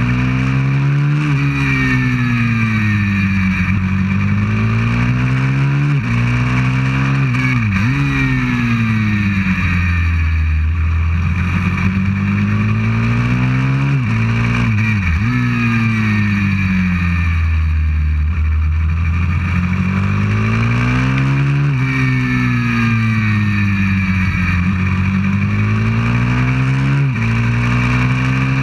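A 190cc pit bike's single-cylinder four-stroke engine, close to the mount, revving up and falling back again and again as the bike accelerates along straights and slows for corners. A few sudden sharp dips in pitch break up the rises.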